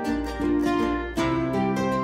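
Background music: a bright tune on plucked strings, with sharp note attacks over held bass notes.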